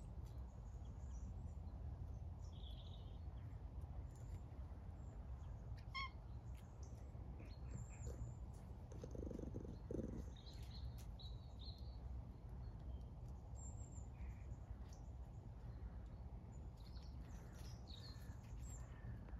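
Faint outdoor ambience: a steady low rumble with small birds chirping here and there, and a short low rasping sound about nine seconds in.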